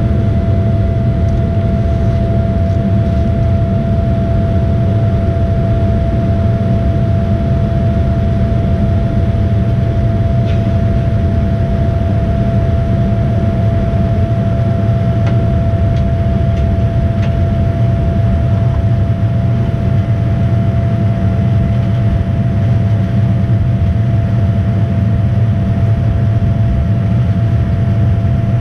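Boeing 787-9's GE GEnx-1B turbofan engines during climb-out, heard inside the cabin at a window seat: a steady deep rumble with a constant whine above it.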